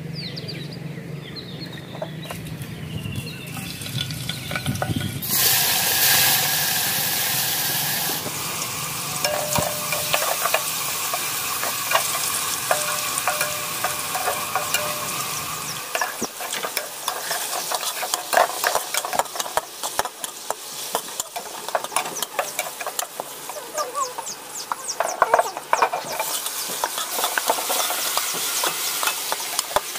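Food sizzling as it fries in a pan while being stirred, with quick scraping clicks of a spatula against the pan. The sizzle comes up loudly about five seconds in.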